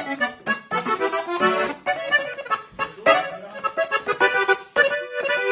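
Gabbanelli button accordion played solo, a fast run of short, detached notes and chords.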